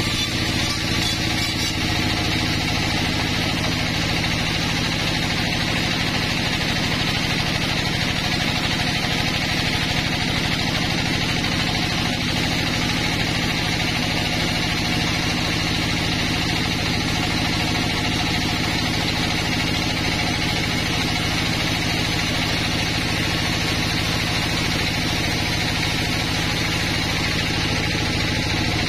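Sawmill band saw running steadily as its blade rips lengthwise through a pine log, a continuous machine drone with cutting noise.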